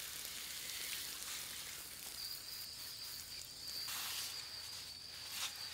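Water spraying from a garden hose nozzle over a basket of apples to rinse them: a steady high hiss. A thin, steady high tone joins about two seconds in and drops out near the end.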